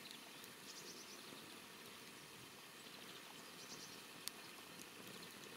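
Near silence: faint outdoor ambience, with two brief runs of faint high ticking and one sharp click a little after four seconds in.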